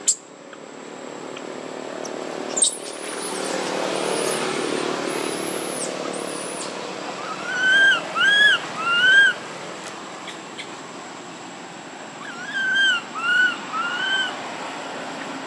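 Baby long-tailed macaque crying: two runs of three short, high-pitched calls, each rising and then falling, the first run about halfway through and the second near the end.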